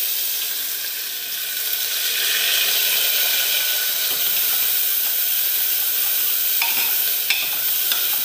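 Chopped onion sizzling in hot cooking oil in a pan, a steady frying hiss. A few clicks of the stirring utensil against the pan come near the end.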